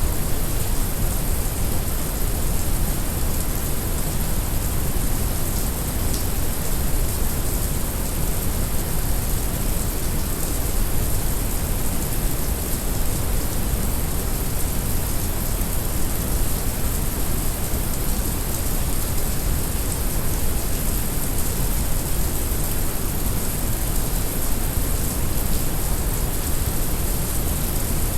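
Heavy rain mixed with steady brown noise: an even, unbroken deep rumble under a constant high hiss of rain.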